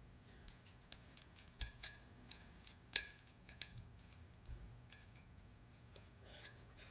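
Faint, irregular light clicks and taps of small metal brake hardware being handled and fitted into the caliper bracket by hand, about a dozen or more, the sharpest about three seconds in.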